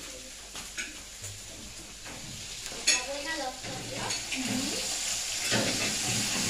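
Cutlery and dishes clinking at a dining table, with one sharp clink about three seconds in, over a steady hiss that grows louder near the end and faint voices.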